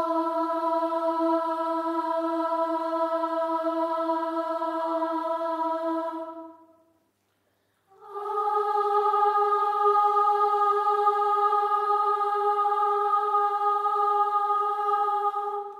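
A choir singing a long, steady held 'aah' chord that fades out about six and a half seconds in; after about a second of silence, a second held chord on different notes begins.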